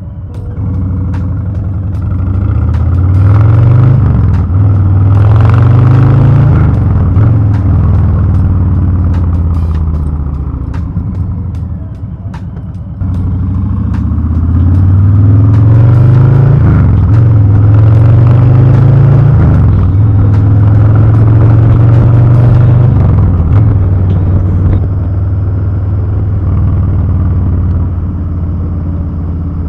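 2021 Harley-Davidson Low Rider S's Milwaukee-Eight 114 V-twin, breathing through a TBR Turnout 2-into-1 exhaust, being ridden on the road. It accelerates and shifts up through the gears in two runs, its pitch climbing and dropping back at each shift, then settles to a steadier cruise near the end.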